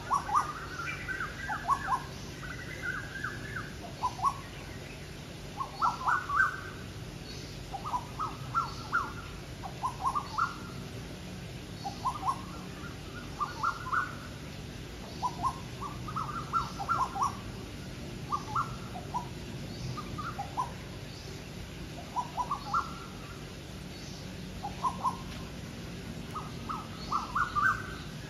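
Asian koels calling against each other, short rising notes repeated in overlapping runs all the way through, over a low steady hum.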